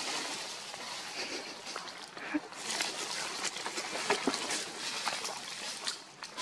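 Outdoor ambience of dry leaves rustling and crackling over a steady hiss, with a couple of faint short squeaks partway through.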